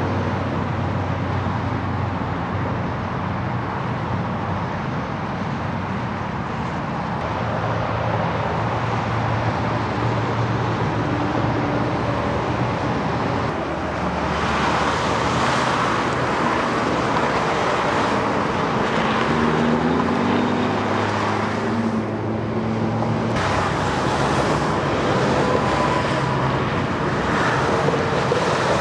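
Steady freeway traffic noise, cars and trucks passing in a continuous rush. The sound changes abruptly twice, where the recording cuts.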